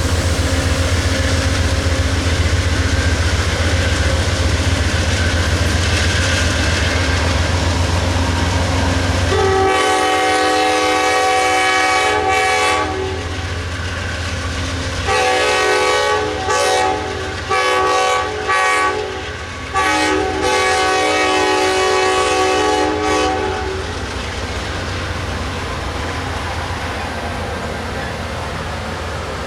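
Two departing GE P42DC diesel locomotives: a low, steady V16 engine hum for the first nine seconds or so, then the air horn sounding a chord. It gives one long blast, a string of several short blasts and a final longer blast. Afterwards only the rolling clatter of the train's wheels on the rails is left.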